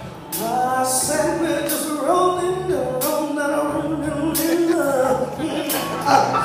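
A live band playing a song with sung vocals over drums, electric guitar and keyboards, with percussion strikes every half second or so, heard from the audience in a concert hall.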